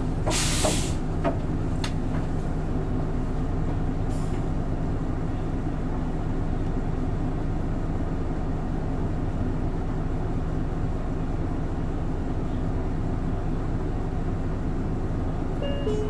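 Hino Blue Ribbon City Hybrid bus running, heard from inside the passenger cabin: a steady engine drone with road noise. There is a short hiss of air about half a second in, and a brief electronic tone near the end.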